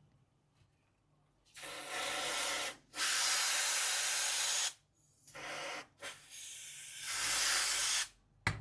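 Aerosol freeze spray hissing in four bursts, the second the longest, sprayed over a logic board whose shorted power rail has 1 V injected. This is the freezing trick for finding a short: the frost melts first off the shorted part as it heats.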